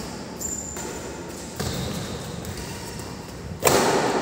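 Badminton rally in a large indoor hall: three racket hits on the shuttlecock about a second or two apart, the last, about three and a half seconds in, much the loudest and echoing.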